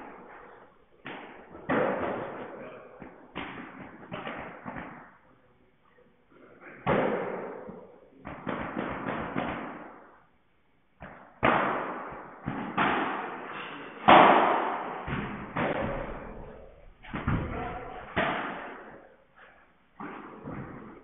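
Padel rally: the ball is struck by padel rackets and bounces off the court and glass walls, a string of sharp hits, each ringing on in a long echo in the hall, with a couple of short lulls between exchanges.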